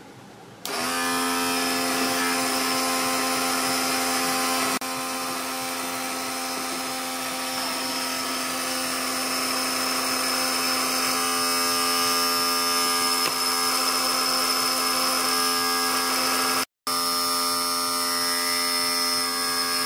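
Small 12-volt DC motor of a homemade mini drill press, switched on under a second in and spinning a micro drill bit in its chuck with a steady whine. It runs freely, the bit not cutting, and drops out for an instant near the end.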